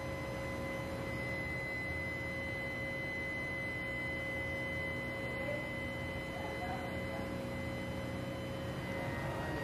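A steady high-pitched whine of a few pure tones, held without change over a low rumble.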